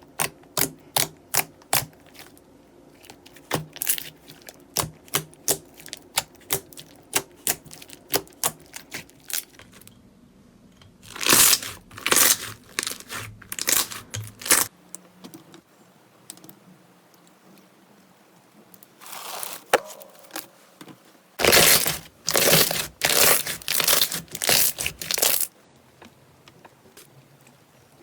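Slime being pressed and squeezed by hand in a run of sharp popping clicks, about two or three a second. Then come longer crackling, crunching squishes in three bouts.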